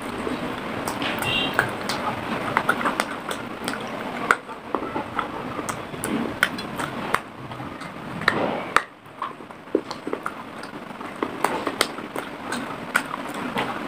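Close-miked crunching and chewing of a piece of unglazed clay pot, with many sharp, irregular cracks as the clay breaks between the teeth.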